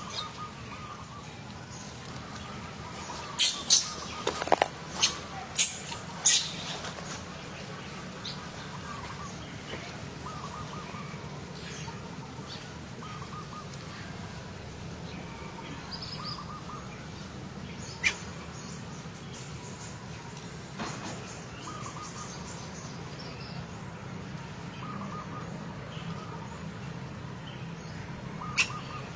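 Bird chirping in short calls that repeat every second or two over a steady low hum, with a cluster of sharp clicks about four to six seconds in and a couple more later.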